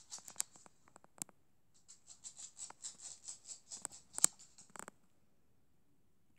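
A cat grooming another cat's head with its tongue: a few separate licks and clicks, then a quick run of raspy lick strokes, about five a second, stopping near the end.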